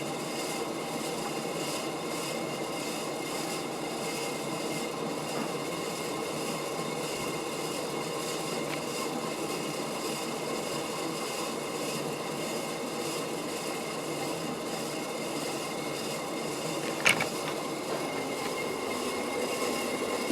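A 1986 Casablanca Delta II ceiling fan running steadily on high, a constant whir with several steady tones from its noisy, worn motor bearings. A single short click comes near the end.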